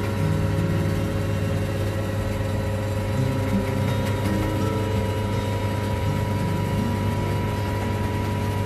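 Chamber vacuum sealer's pump motor running steadily with a low, even hum as it draws the air out of the sealed chamber.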